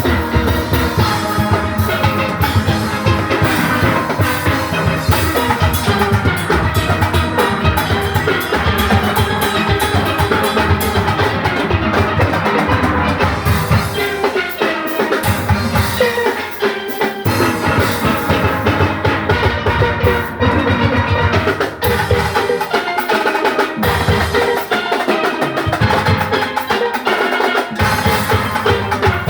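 A full steel orchestra playing steelpans at speed, many pans ringing together over a drum kit and rhythm section beat. The bass and drums drop out briefly a couple of times, leaving the pans on their own.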